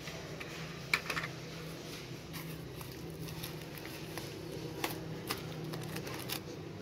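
Hands handling a plastic car phone mount and its cardboard and paper packaging: a few light clicks and rustles, the sharpest about a second in, over a steady low hum.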